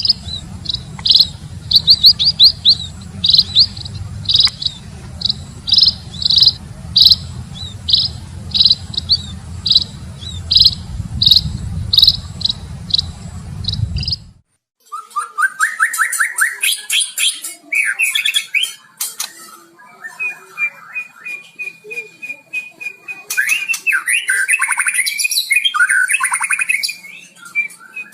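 Songbirds singing: first a bird repeating a short, sharp chirp about twice a second over a low hum, then, after a cut about halfway through, a different recording of varied, sliding song phrases with a long held whistle note near the end.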